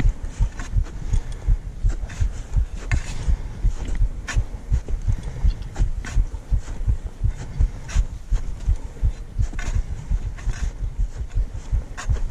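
Footsteps of a climber walking uphill on snow, a steady rhythm of low thumps about two to three a second with crisp crunching steps on top.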